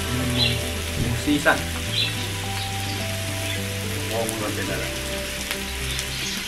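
Pork belly and brisket sizzling on a tabletop grill pan, a steady frying hiss.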